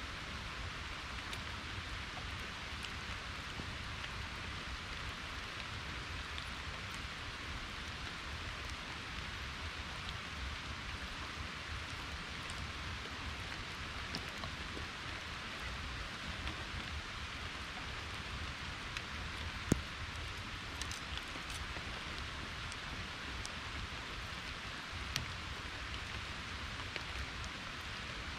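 Rain falling steadily, a constant even hiss with a couple of sharper single drop ticks, one about two-thirds of the way through and another near the end.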